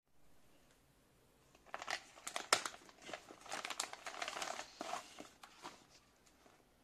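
Clear plastic packaging bag crinkling and crackling as it is handled and opened, with one sharp snap near the middle.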